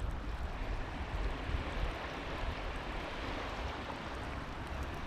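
Steady wash of water with wind rumbling on the microphone.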